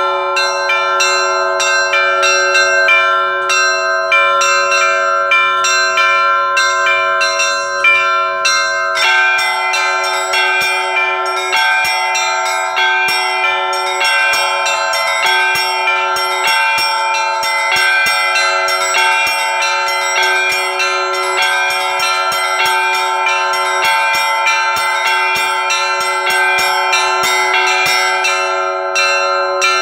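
Russian bell ringing (zvon): a set of church bells sounded by their clappers, the small high bells struck in a fast, even run over the sustained hum of the larger bells. About nine seconds in, the pattern shifts and more bells come in.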